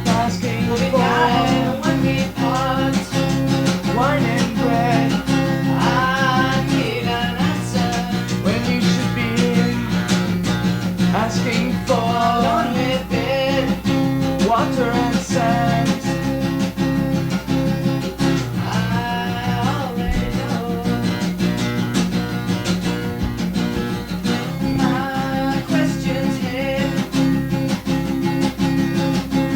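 Acoustic guitar strumming and plucking chords in a steady rhythm, with a melody line over it that bends and wavers in pitch.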